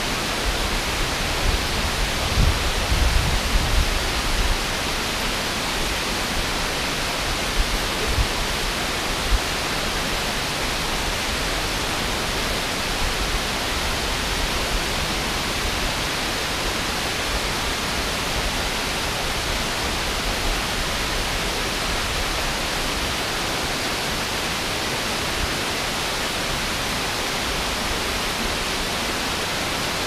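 Steady rushing of a river waterfall and the rapids below it, an even white-noise roar with no breaks. Brief low rumbles come through between about two and five seconds in, and once more around eight to nine seconds.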